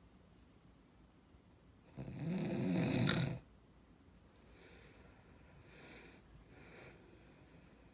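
A single loud snore about two seconds in, lasting over a second, its pitch rising then falling. Three fainter, breathy breaths follow.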